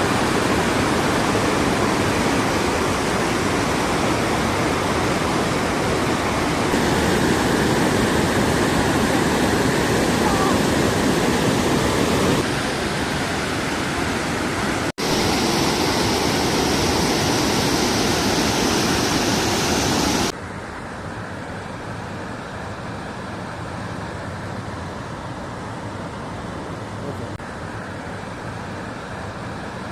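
Water of the Lechfall, the stepped weir waterfall on the Lech river, pouring down in a steady loud rush. The sound cuts out for an instant about halfway through, and about two-thirds through it drops to a quieter, duller rush.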